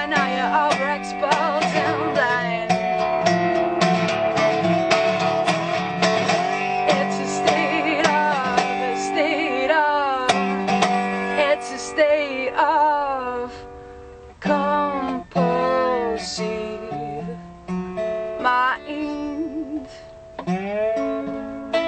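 Gretsch resonator guitar played solo in an acoustic blues style, picked and strummed with bent notes. It drops quieter and sparser about two-thirds of the way through, then picks up again near the end.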